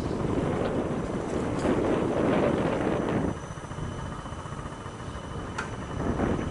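Wind buffeting the microphone of a moving camera, a gusty low rumble that drops off about three seconds in.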